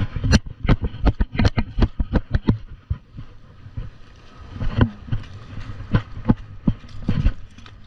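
Flip-flop sandals slapping on wet sand: quick steps for the first couple of seconds, then a slower walking pace. A steady low rumble of surf and wind runs beneath.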